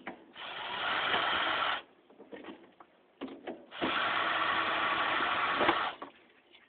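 Power drill driving screws out of a ceiling fan's housing, running in two steady spells of about one and a half and two seconds, with small clicks and handling noise between them.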